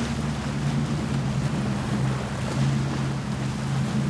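Offshore performance powerboat's engines running at high speed through rough water, a steady low drone whose pitch dips slightly about halfway through, over a rush of wind and surf.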